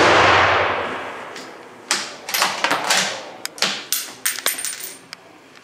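Report of a Remington 700 bolt-action rifle in .308 Winchester dying away in a long echo off the walls of an indoor range. About two seconds in comes a string of metallic clicks and clinks: the bolt being worked and the spent brass case landing and ringing on the hard floor.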